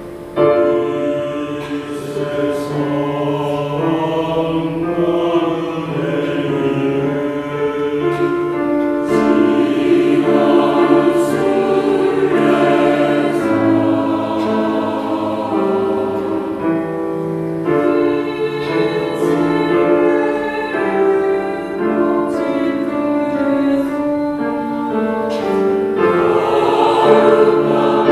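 Large mixed church choir singing a hymn in harmony, with piano accompaniment; the choir comes in about half a second in.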